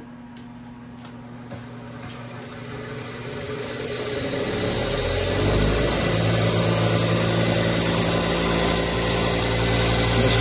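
Bench-top golf shaft cutting machine starting and running as a taped graphite golf shaft is cut. The motor noise builds over the first five seconds or so, then holds loud and steady with a low hum and a hiss.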